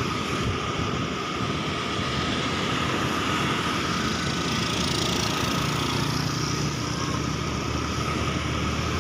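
Motorbike engine running steadily on the move, with road noise and a constant hum, as heard by the rider.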